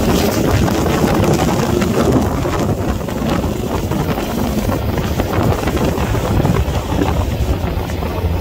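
Wind buffeting the microphone of a moving motorcycle, over the steady low drone of motorcycle engines riding in a column.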